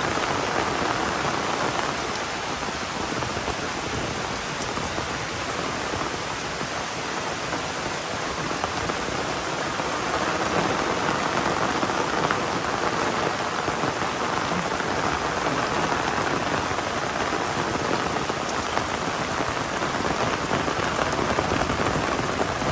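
Heavy rain pouring steadily, easing a little a few seconds in and building back up about halfway through.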